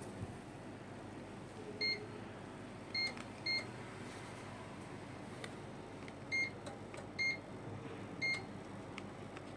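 Sanyo SAP-KC74GGC (Gree-built) split air conditioner's indoor unit beeping as it receives remote-control commands. There are six short single beeps of the same pitch, spaced irregularly, over a steady low background noise.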